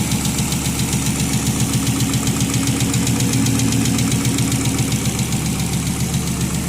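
1996 Volvo 850 Turbo's turbocharged inline-five idling steadily, with a rapid, regular ticking over the engine note. The owner suspects the tick comes from a lifter or a spark plug.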